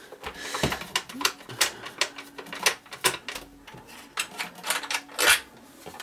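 Small screwdriver backing screws out of a Krups 223A coffee grinder's plastic housing: a run of light, irregular clicks and ticks as the screws turn and are handled.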